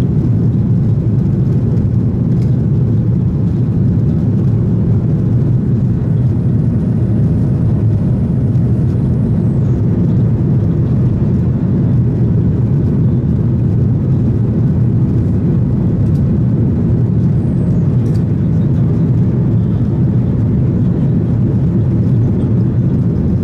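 Steady cabin drone of a Boeing 737-800 in flight, heard from a window seat beside the wing: its CFM56-7B turbofan engines and the rushing airflow. A faint high whine sounds for about four seconds near the middle.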